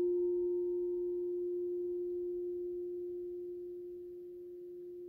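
The long ringing of a struck bell-like metal instrument: one strong low steady note with fainter higher overtones, slowly fading.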